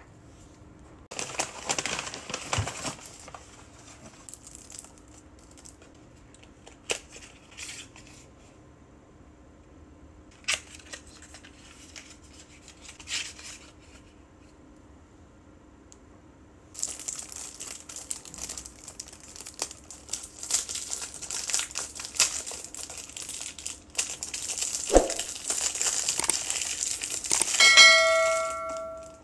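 Plastic and cardboard cosmetic packaging crinkling and rustling as it is handled and opened, with a few sharp clicks along the way. Near the end a bell-like chime rings out: a subscribe-button sound effect.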